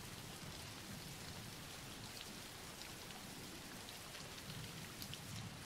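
Faint steady rain: an even patter of falling rain with scattered light drop ticks.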